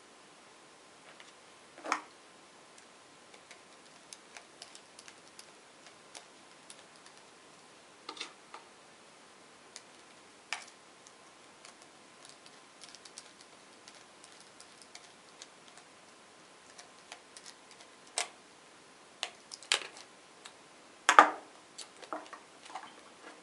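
Hands assembling a small robot-car kit: a screwdriver driving small screws through a yellow gear motor's mounting bracket into the chassis plate, with scattered clicks and taps of plastic and metal parts. A few sharper knocks stand out, the loudest near the end, over a faint steady tone.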